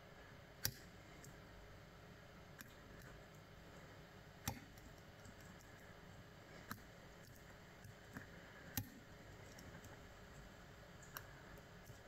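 Lock pick working the pins of a brass euro-profile cylinder: light metallic clicks, about seven scattered irregularly, three of them louder, over a faint hiss.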